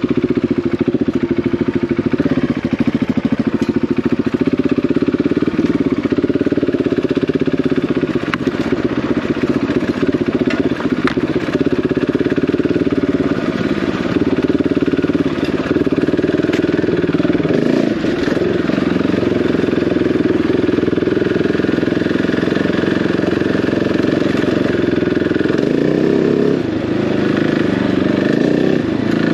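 Single-cylinder dual-sport motorcycle engine running steadily, its note wavering a little now and then.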